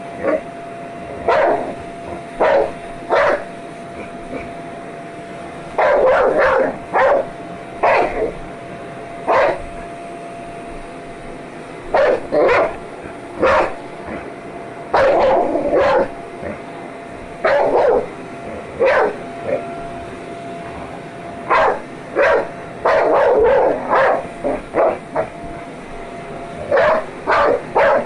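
Dog barking again and again, often two or three barks in quick succession, at a running vacuum cleaner whose steady motor hum carries on underneath.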